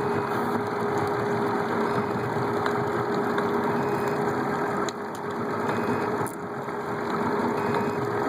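An engine running steadily, a constant hum over a dense rumble.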